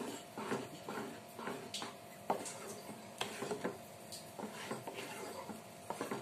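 Wooden spatula stirring thick milk, milk-powder and ghee mixture for khoa in a metal kadai, scraping and knocking against the pan in irregular strokes, two or three a second. It is stirred continuously so the mixture does not go lumpy.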